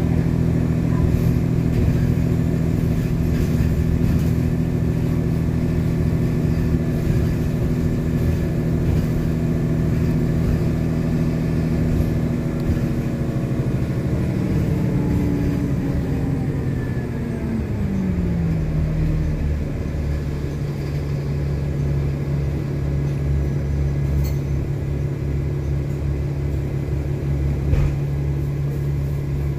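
Cummins ISL diesel and ZF six-speed automatic of a 2010 Nova Bus LFS heard from inside the bus, running under way. About halfway through a whine falls in pitch as the bus slows to a stop, and the engine then settles into a steady idle. There is a short knock near the end.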